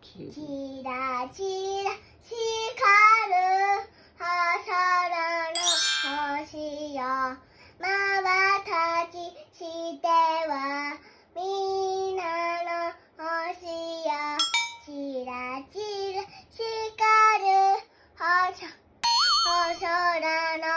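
A three-year-old girl singing a children's song at full voice, in short sung phrases with brief pauses for breath.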